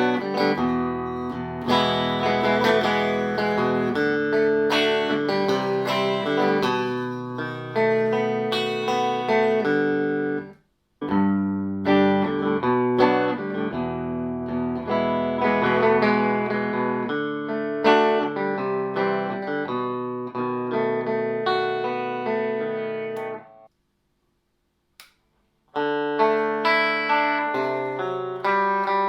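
Fender Telecaster electric guitar played clean through a Fender '57 Tweed Twin amp with no effects, strumming and letting chords ring. The playing breaks off briefly about eleven seconds in, stops for about two seconds near the end, then starts again.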